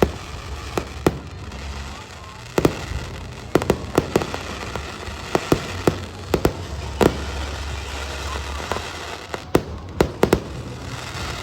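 Aerial fireworks bursting: many sharp bangs at irregular intervals, often several in quick succession, over a steady background noise of further distant bursts.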